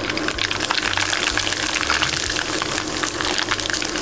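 Dry rice vermicelli sizzling and crackling in oil near 200 °C in a wok, a dense fast crackle over a steady hiss as the strands puff up in the hot oil.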